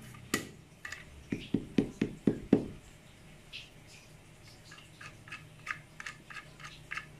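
Handling noise from a carbon solid fishing rod being worked at the joint between its butt and blank. A sharp click, then a quick run of about six dull knocks, then light clicks about three a second.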